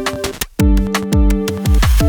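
Electronic music with a steady kick-drum beat, about two beats a second, under sustained synth chords; it drops out briefly about half a second in.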